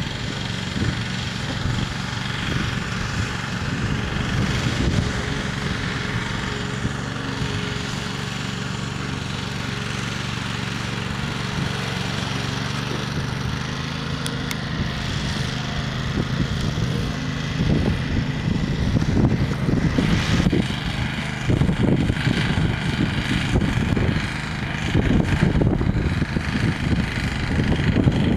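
Small engine of a homemade tractor running steadily as it drives across a field, pulling a fertilizer spreader; the sound grows louder and more uneven in the second half.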